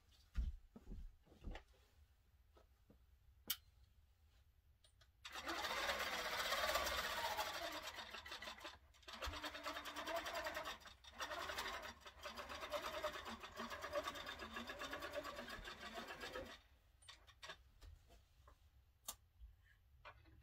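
Grace Company Qnique 15 Pro long-arm quilting machine stitching as it bastes the quilt top onto the frame. It runs in three stretches of a few seconds each, with two brief stops, and a few light clicks come before and after.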